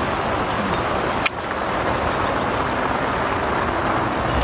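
Heavy rain falling steadily, an even hiss throughout, with a single sharp click about a second in.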